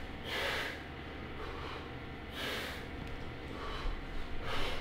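A man breathing audibly through a stretching exercise, about three breaths some two seconds apart.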